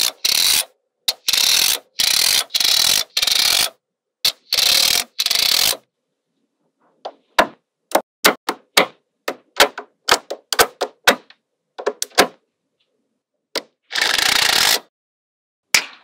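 Small neodymium magnetic balls clicking and clattering as strips of them are snapped onto a block built of the same balls. Short rattling clatters come in the first five seconds and again near the end, with a run of quick sharp clicks in between.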